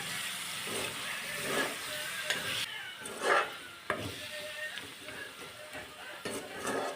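Food sizzling as it fries in oil in a pan, stirred with a spatula in several irregular scraping strokes, the loudest about three seconds in.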